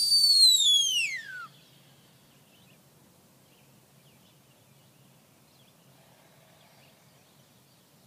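Sheepdog handler's whistle command to a working dog: a loud, high note held for about a second, then sliding steeply down in pitch and stopping about a second and a half in.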